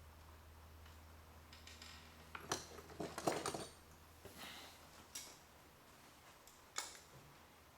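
Faint scattered clicks and light clatter of small hard objects being handled, loudest in a short cluster about three seconds in, with a low steady hum that fades out about halfway through.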